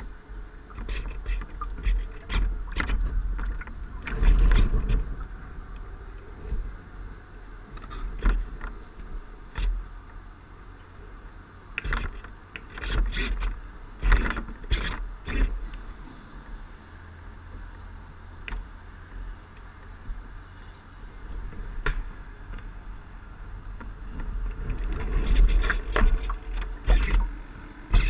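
Water slapping and splashing irregularly against the hull of a radio-controlled model sailboat under way, picked up by a camera on its deck, over a steady low rumble.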